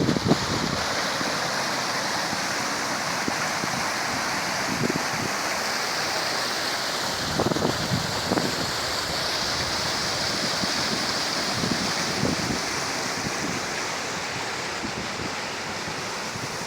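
Sea surf washing in steadily, an even hiss of breaking water.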